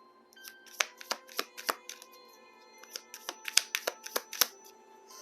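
Soft background music of steady held tones, over a run of sharp clicks and taps from tarot cards being handled and laid down on a table. The clicks start about a second in and come thickest near the middle.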